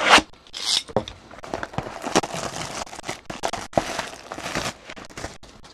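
A knock at the start, then the plastic shrink wrap on a trading-card hobby box crinkling and crackling in irregular bursts as hands pick at it and peel it off.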